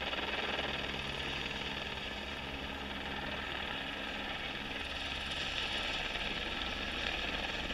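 Steady drone of motor vehicles on a mountain climb, growing a little louder after the middle as race motorcycles approach.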